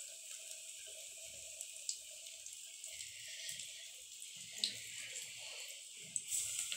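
Hot oil sizzling steadily in an aluminium kadai as keerai vadai batter deep-fries, with a few small crackles. About six seconds in the sizzle briefly swells as another ball of batter is dropped into the oil.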